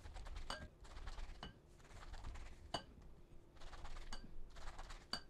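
A knife slicing through a peeled pineapple held over a glass bowl, with soft cutting and scraping sounds. Five sharp clinks ring out as the knife touches the glass bowl.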